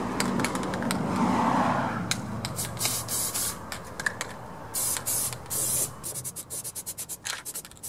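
An aerosol spray-paint can spraying in a few short hisses, about halfway through, between clicks and handling noise.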